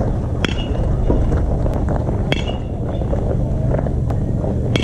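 Baseball bat hitting pitched balls in batting practice: three sharp cracks about two seconds apart, each with a brief high ring, the last near the end. A steady low rumble of wind on the microphone runs underneath.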